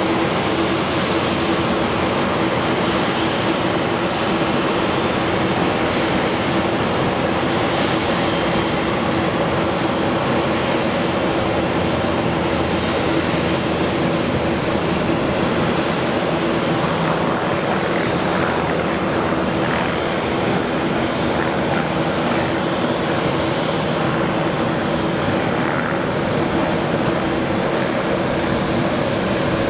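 Grob G115 single-engine light aircraft's piston engine and propeller running at full takeoff power, a steady sound with one constant hum-like tone, through the takeoff roll and climb-out.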